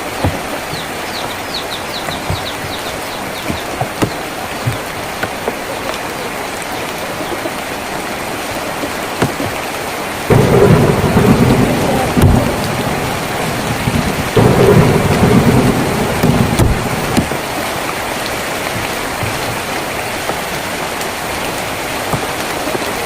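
Steady rain drumming on a tin roof, with single drips knocking now and then. About ten seconds in, thunder rumbles heavily, twice in a row, then the rain goes back to its steady hiss.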